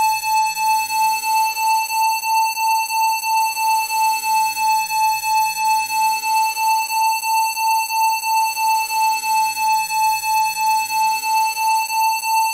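A steady 880 Hz electronic test tone (a Rife-frequency tone), pulsing evenly about three times a second, with faint sweeping tones rising and falling behind it.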